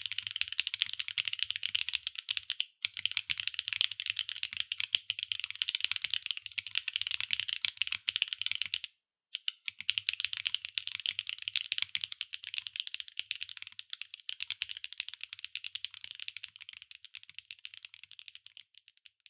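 Fast continuous typing on a mechanical keyboard with HMX Candy Red linear switches, PBT keycaps on an aluminium plate, giving a dense stream of clacky keystrokes. It stops briefly twice, and the keystrokes grow sparser and quieter near the end.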